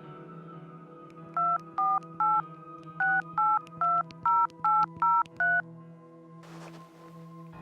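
Telephone keypad touch-tones dialing a number: ten short two-note beeps, three in quick succession, a short pause, then seven more. Soft background music plays underneath.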